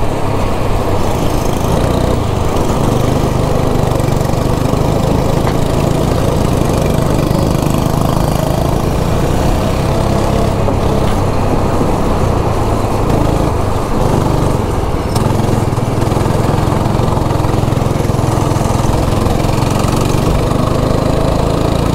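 Go-kart engine running hard through a lap on a wet track, heard from the driver's seat. It is a steady, loud engine note with small rises and falls as the throttle changes.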